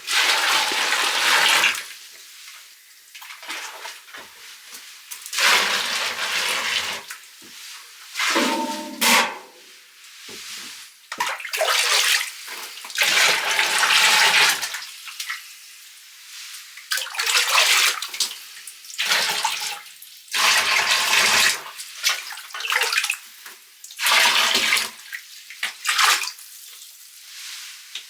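Water splashing and pouring in about ten bursts of one to two seconds each, with quieter gaps between, as dishes are washed and rinsed by hand in hot water.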